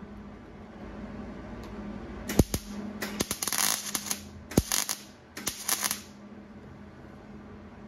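Wire-feed welder crackling and sizzling in four short bursts as it tack-welds thin, old sheet steel on a car hood. The metal holds without blowing through.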